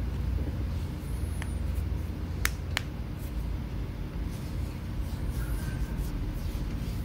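A steady low rumble of background noise, with two sharp clicks about a third of a second apart near the middle.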